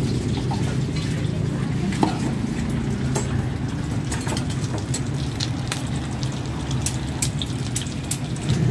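Steady low rumble of road traffic, with many short clicks and taps scattered through it, more frequent in the second half.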